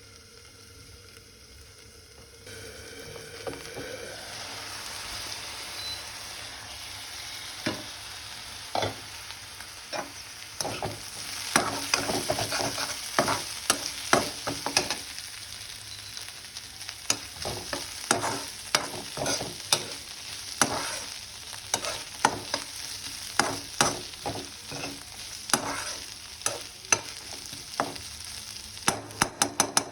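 Chopped vegetables frying and sizzling in oil in a pan, stirred with a spatula that knocks and scrapes against the pan several times a second. The sizzle grows a couple of seconds in, and the spatula strikes start about seven seconds in.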